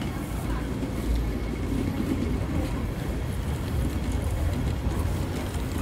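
City street ambience: a steady low rumble of passing traffic with faint scattered clicks and knocks.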